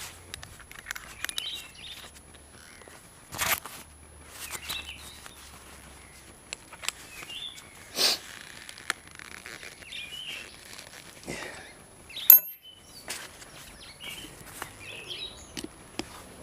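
Small birds chirping now and then in the background, with a few sharp clicks and knocks in between; no drill running.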